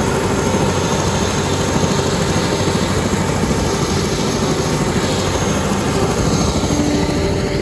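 Helicopter engine and rotor running, a loud, constant noise with a fast flutter underneath.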